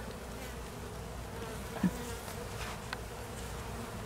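A swarm of honey bees buzzing, a steady hum, with one brief knock about two seconds in.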